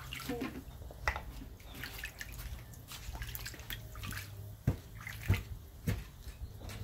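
Water splashing and dripping in a shallow foldable PVC dog pool as a hand scoops water over a small dog during a bath, with a few sharper splashes about a second in and three more in the second half.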